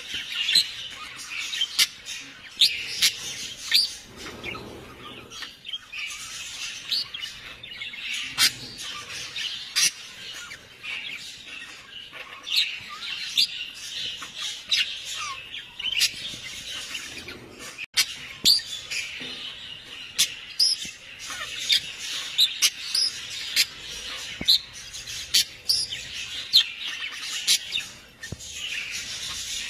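Birds chirping: many short, sharp calls in quick succession, overlapping throughout.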